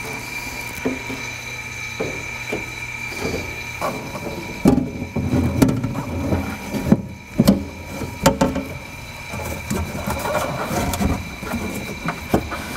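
Replacement rear door window glass being worked by hand down into a 1998 Ford Contour's door, scraping and knocking against the door frame and channels, with a cluster of sharp knocks between about four and nine seconds in.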